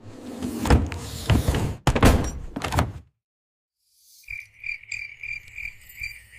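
A run of thuds and knocks, then after a second of silence a steady chirping of night insects, about four chirps a second, over a low hum.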